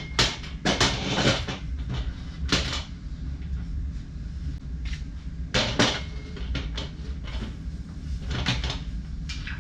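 Scattered knocks and clunks of equipment being handled and moved aside while a miter saw stand is set up. A cluster comes in the first second and a half and another about six seconds in, over a steady low hum.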